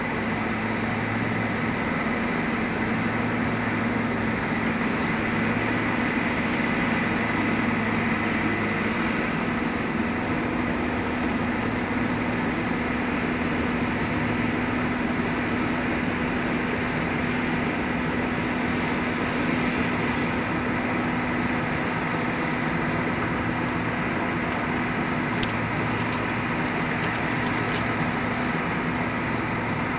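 Case crawler bulldozer's diesel engine running steadily, with a constant high whine over the engine note. A few light clicks come near the end.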